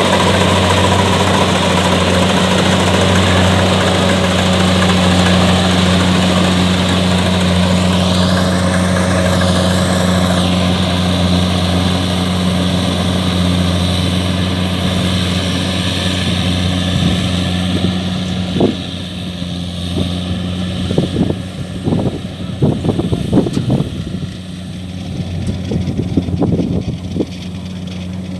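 Kubota DC-70 combine harvester's diesel engine running steadily while harvesting rice, a constant low hum. The hum fades in the second half as the machine moves away, with irregular thumps near the end.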